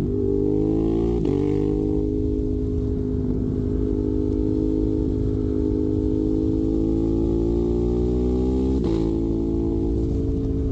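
Ducati Monster 821's L-twin engine through a Termignoni exhaust, pulling under acceleration with the note rising slowly. It upshifts about a second in and again near the end, the pitch dropping at each shift and climbing again.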